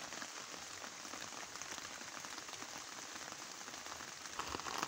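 Faint, steady hiss with a fine crackle running without a break.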